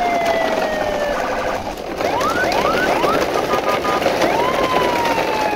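Electronic siren-like sound: a long tone that glides slowly downward, breaks off, then a few quick rising chirps and a short beeping. The slow falling tone starts again near the end, over a steady hiss.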